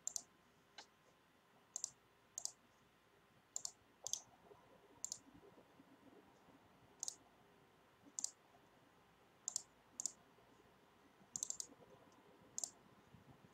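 Computer mouse clicking: a dozen or so short, sharp clicks at uneven intervals, some in quick pairs like double-clicks, with near silence between them.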